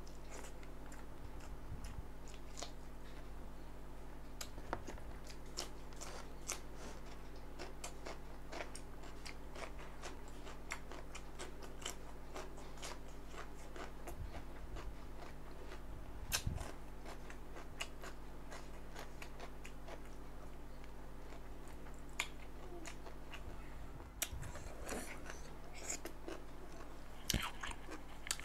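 Close-up biting and chewing of chicken feet: a steady run of small crunches and wet mouth clicks, with a low steady hum underneath.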